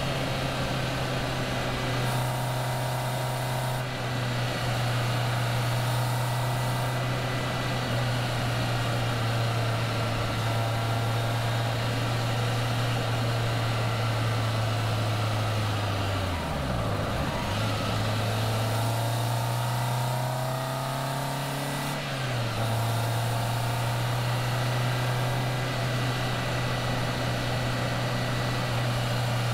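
Caterham Seven's engine running at cruising revs, with wind and road noise around the open car. About two-thirds of the way through, the engine note dips sharply and recovers. It then climbs for several seconds and drops suddenly to a lower steady note at an upshift.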